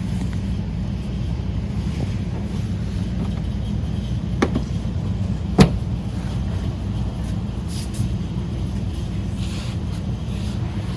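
Two sharp clicks about a second apart, plastic bumper retaining clips being pressed into place, over a steady low rumble.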